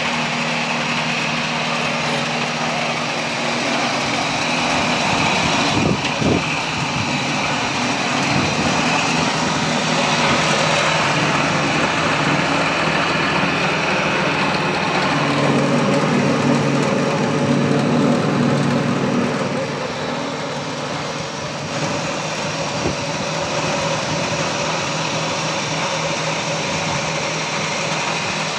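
Hammer mill pulverizer running steadily while grinding drumstick (moringa) leaves into fine powder: a continuous machine hum under a dense rushing noise. There are a couple of knocks about six seconds in, and the hum grows stronger for a few seconds about halfway through.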